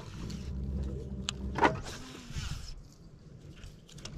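A small electric motor hums low and steady, then fades out after about three seconds. Two sharp knocks come about a second and a half in, followed by a brief hiss.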